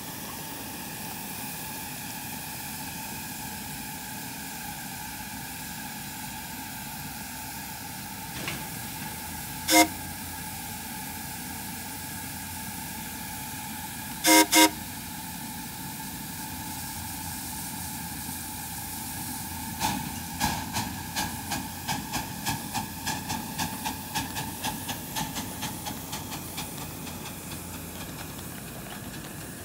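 Oil-fired live-steam 10-wheeler locomotive hissing steadily from its burner and steam, with a short whistle blast about ten seconds in and two quick blasts a few seconds later. Later it moves off with a run of regular exhaust beats, about two or three a second, that fade away.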